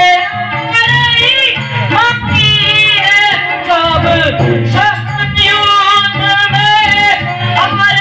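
A voice singing a melody over instrumental accompaniment, with long held notes that bend in pitch over a steady low tone.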